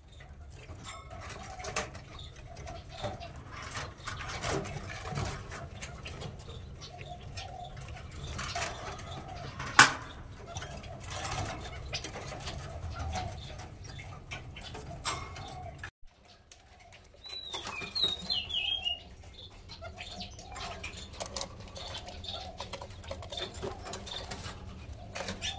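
Caged birds cooing low and repeatedly, over clicks and rattles from a wire cage being handled, with one sharp click about ten seconds in. A short high chirping call comes a little past halfway.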